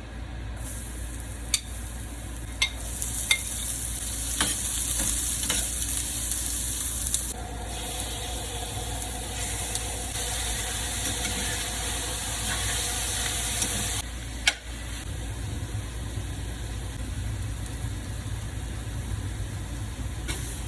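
Food sizzling in a hot pan or pot while it is stirred, with a few sharp clacks of the utensil against the pan. The sizzle is loudest for the first two thirds, then drops to a lighter, steady frying hiss.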